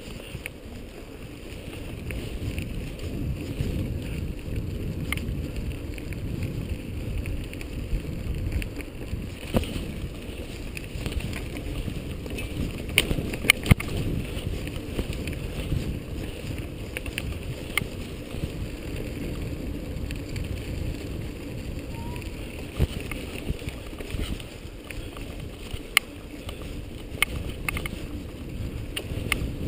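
Wind buffeting the camera microphone and the low rumble of a mountain bike rolling over a dirt trail, with sharp clicks and knocks now and then as it rattles over bumps, the loudest a little under halfway through.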